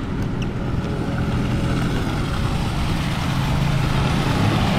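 Water rushing out of the open nozzle of a newly installed fire hydrant and splashing onto the pavement, steady and growing louder near the end, as the hydrant is flushed before being put in service. A steady low hum runs underneath.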